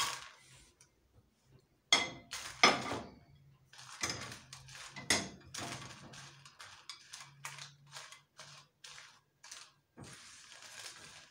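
A spatula stirs dried Kashmiri red chillies as they dry-roast in a nonstick frying pan: the chillies rattle and the spatula knocks and scrapes on the pan. A few louder knocks come in the first five seconds, then a quicker run of short clatters. A faint steady low hum runs underneath.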